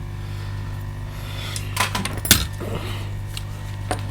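Small metal tools clinking and tapping on a workbench: a few light, separate clicks, the loudest a little past halfway, over a steady low electrical hum.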